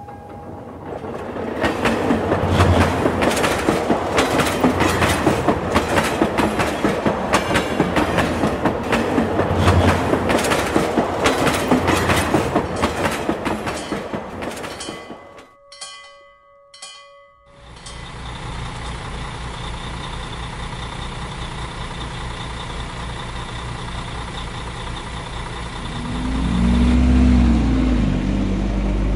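Toy model train running on plastic track: a rapid, even clatter of its wheels over the track. After a brief gap midway, a steady engine drone takes over, growing louder near the end.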